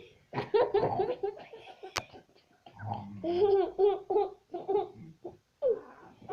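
A baby's babbling and laughter mixed with short, low, rasping snore imitations in a series of brief vocal bursts. A single sharp click about two seconds in.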